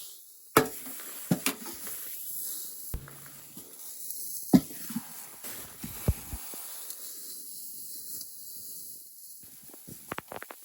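A steady hiss with scattered sharp clicks and knocks, a few of them loud, and a quick run of ticks near the end.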